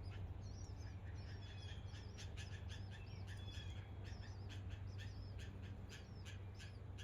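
Small birds chirping: many short, high-pitched chirps and quick chips repeating several times a second, over a steady low hum.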